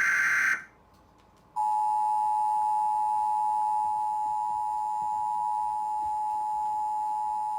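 Emergency Alert System broadcast: the harsh, screeching data burst of a SAME header stops about half a second in. After a second's pause the two-tone EAS attention signal starts and holds steady, announcing the tornado warning that follows.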